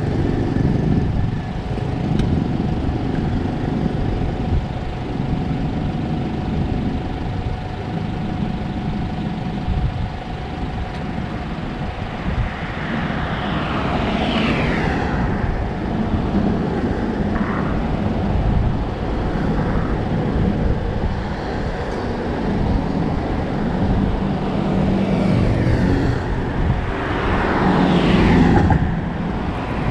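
Road traffic passing on the coastal road over a constant low rumble. Vehicles sweep by twice, once around the middle and again near the end, each falling in pitch as it goes past.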